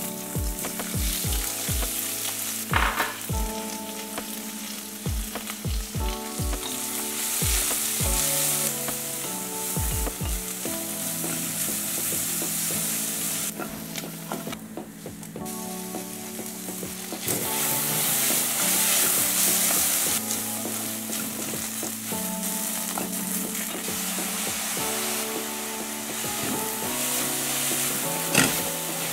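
Sliced onions frying in hot oil with cumin seeds in a stainless steel kadai, sizzling steadily while a wooden spatula stirs them.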